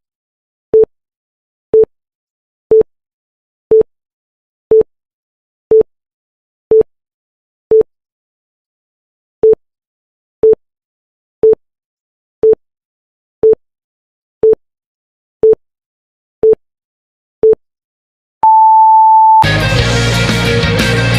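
Electronic countdown beeps: a short mid-pitched beep once a second, with one beat skipped about halfway, ending in a longer, higher beep of about a second as the count reaches zero. Loud rock intro music then starts near the end.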